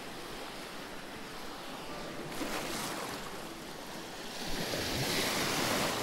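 Small sea waves washing over a shallow stony shore, swelling louder in the last second and a half as a wave breaks into foam.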